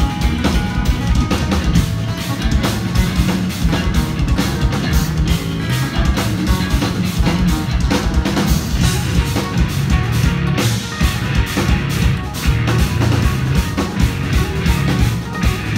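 Live instrumental progressive metal: two eight-string electric guitars and a drum kit playing loud, dense riffs over rapid bass-drum strokes that run without a break.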